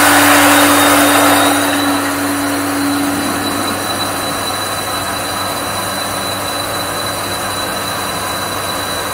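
Electric pump of a domestic water pump station running steadily with a hum, on its first run after the system was filled with water. A higher tone in its sound fades out over the first three seconds, and the level drops a little about two seconds in.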